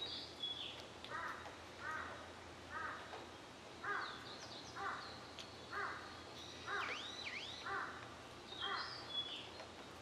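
A crow cawing about nine times in an even series, roughly once a second. A few high whistled calls of small birds sound over it, against a steady background hiss.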